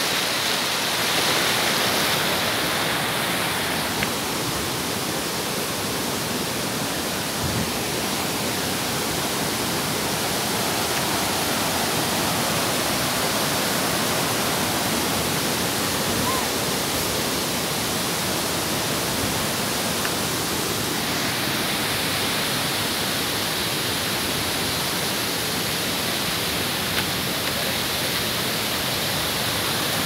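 Steady rushing of a waterfall and its stream over rocks.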